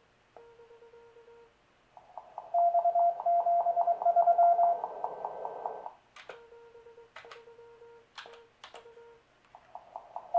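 Morse code (CW) tones from a homebuilt 30-metre amateur radio transceiver. A strong, higher-pitched signal is keyed quickly for about four seconds from about two seconds in, between stretches of a quieter, lower-pitched keyed tone. A few sharp clicks come in the later part.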